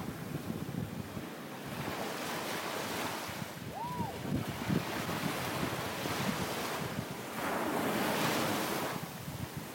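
Ocean surf washing onto the beach, swelling and easing, with a big surge near the end, and wind buffeting the microphone underneath. A single short rising-and-falling tone sounds about four seconds in.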